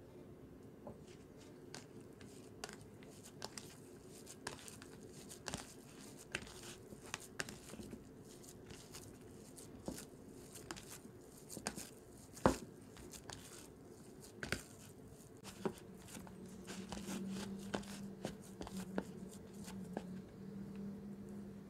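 A hand kneading raw ground meat in a plastic dish: soft squishing with scattered clicks and taps of fingers and meat against the dish, one sharper knock about halfway. A low steady hum comes in about two-thirds of the way through.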